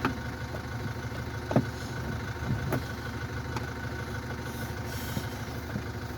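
Car engine idling steadily, with a few sharp clicks or knocks over it.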